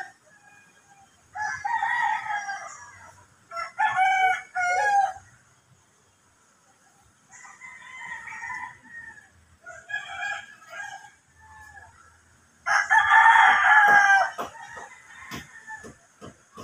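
Roosters crowing, several drawn-out crows one after another, some fainter and more distant, the loudest near the end. A few sharp clicks follow the last crow.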